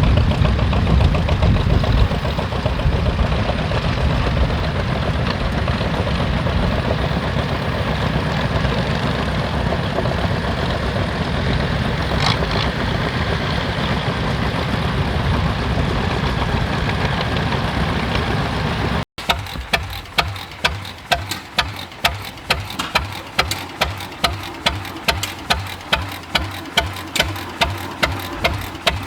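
An engine running loudly and steadily. After a cut about two-thirds of the way in, a slow-running engine pops sharply and regularly, about two and a half times a second.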